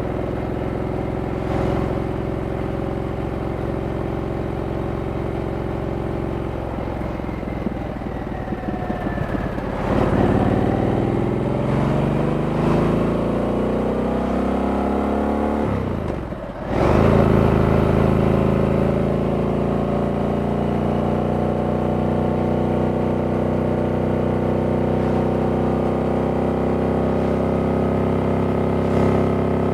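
Stock 2023 Harley-Davidson Sportster S's 1250 cc V-twin running at low, steady revs, then accelerating with rising revs about a third of the way in. The revs drop briefly at a gear change just past halfway, rise again, and settle into steady cruising.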